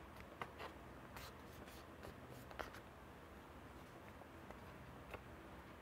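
Faint rustling and a few soft crinkles of a sheet of colour paper being folded in half and creased by hand.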